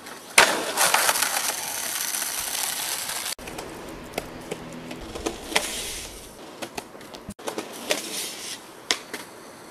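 Skateboard on concrete: a sharp clack as the board lands about half a second in, then the wheels rolling loudly over gritty concrete for a few seconds. Later come scattered single clacks of the board deck and tail hitting the ground.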